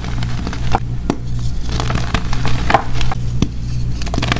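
Blocks of gym chalk crushed and crumbled in the hands: irregular dry crunches and crackles with a few sharper snaps, over a steady low hum.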